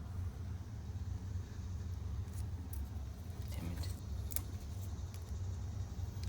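Steady low rumble with a few faint clicks and taps over it.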